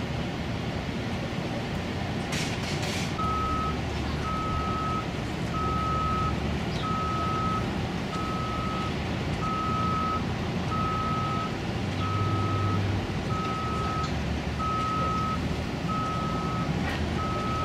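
A vehicle's reversing alarm beeping at one steady pitch, about one beep every 1.3 seconds, starting about three seconds in, over a steady low rumble.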